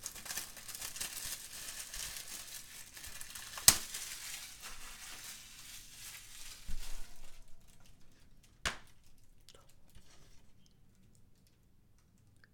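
Cellophane shrink-wrap crinkling and tearing as it is peeled off a plastic DVD keep case, with one sharp snap about a third of the way in. Later come a single sharp click and a few lighter clicks as the plastic case is handled and opened.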